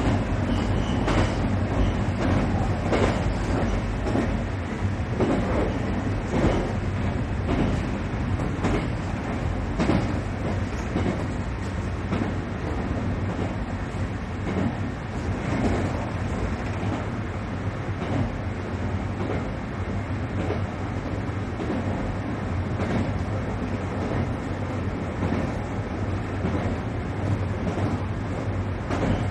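Inside a JR Kyushu local train running along the line: steady running noise of wheels on rail, with repeated clacks as the wheels cross rail joints.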